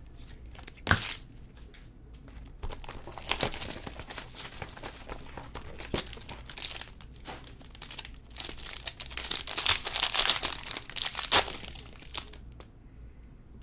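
Plastic and foil baseball card pack packaging crinkling and tearing as it is pulled open by hand, with a sharp snap about a second in and the loudest crinkling of the foil wrapper a few seconds before the end.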